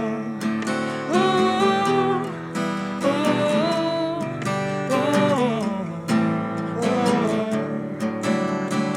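Acoustic guitar strummed steadily with wordless singing held over it.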